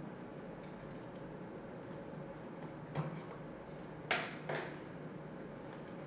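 Hands handling a small cardboard box: a few soft clicks and scrapes of card, one about three seconds in and two more just after four seconds, over a faint steady background.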